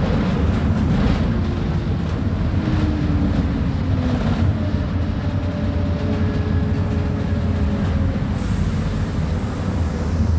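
Mercedes-Benz O500UA articulated bus running, a loud steady low rumble with a few faint whines that glide slightly in pitch.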